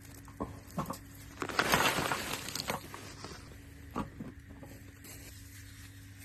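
Plastic food packaging being handled: a few sharp clicks, then a loud stretch of crinkling about a second and a half in, and two more clicks about four seconds in.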